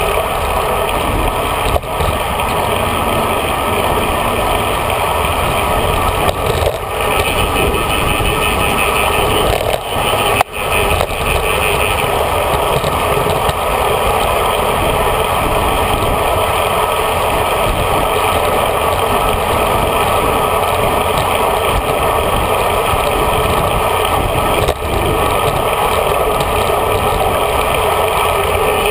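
Steady rushing wind and road noise picked up by a handlebar-mounted GoPro Hero HD on a moving road bike, with a few brief knocks.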